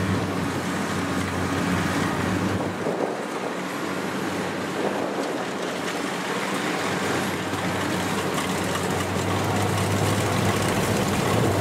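Two Kubota rice combine harvesters driving past one after the other, their diesel engines running at a steady pitch with a low hum. The hum grows louder toward the end as they come closer.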